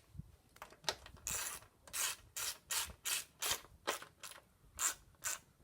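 Ratchet wrench driving 10 mm nuts onto a radiator fan's mounting points, a steady run of short clicking strokes at about two or three a second.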